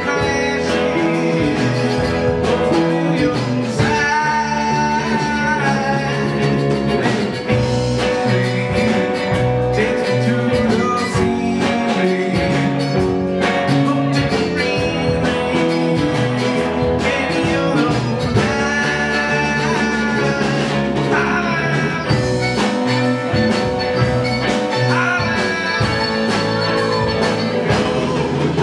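A live folk-rock band playing a song on mandolin, electric bass, electric guitar and drum kit, with singing over it.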